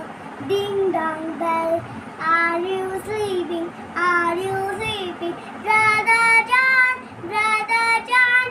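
A young girl singing a nursery rhyme solo, in phrases of held notes with short breaks between them.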